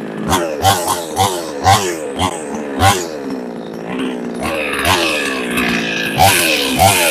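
New West 628 two-stroke chainsaw engine being blipped on the throttle: a quick rev about every half second, its pitch sliding back down toward idle after each, with a steadier, lower stretch in the middle.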